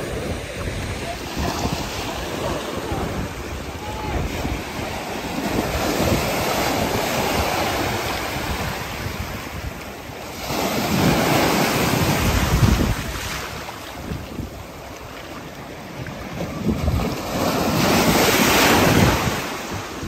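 Ocean surf washing up on a beach, with wind buffeting the microphone. Two bigger waves swell and break, one about halfway through and one near the end.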